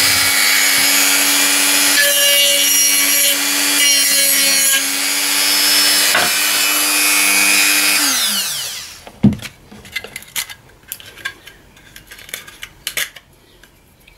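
Handheld rotary tool with a sanding drum grinding away a plastic rib of a battery housing: a steady motor whine over a rasping grind. About eight seconds in it is switched off and spins down with a falling whine, followed by a few light clicks and knocks of handling.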